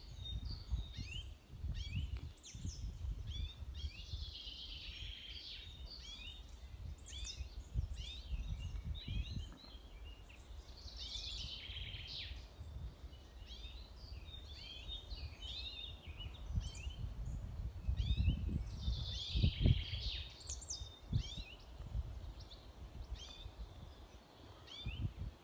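Several songbirds singing and chirping, with many short, quick phrases overlapping throughout, over an uneven low rumble that swells about three-quarters of the way through.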